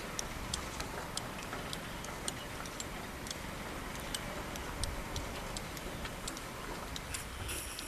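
Low, steady rumble of a Hino dump truck's diesel engine running while the hydraulic hoist tips the loaded bed. Irregular sharp ticks, about two a second, sound over the rumble.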